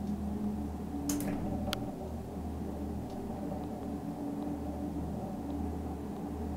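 Steady low hum inside a cable car gondola cabin as it travels downhill along the rope, with two short clicks between one and two seconds in.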